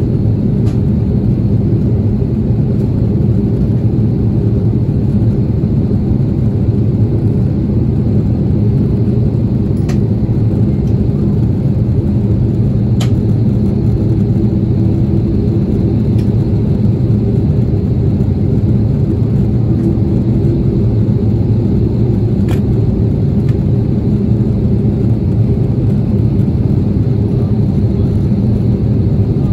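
Steady cabin noise of an Airbus A330-300 heard from a window seat over the wing during descent: a deep, even rumble of engines and airflow, with a few faint ticks.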